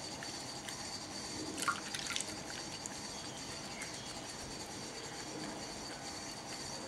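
Wet hands rubbing soap into lather over a glass bowl, with water splashing and dripping. A brief flurry of splashes comes about one and a half to two seconds in. A steady faint hiss runs underneath.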